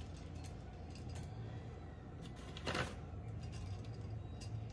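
Light, scattered clicks and taps of white chocolate chips being picked out of a measuring cup on a kitchen scale. One tap about two and a half seconds in is a little louder. A low steady hum runs underneath.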